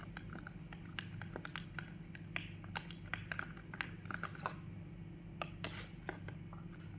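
Glue being stirred for slime: irregular sticky clicks and small wet pops, a few a second, over a steady low hum.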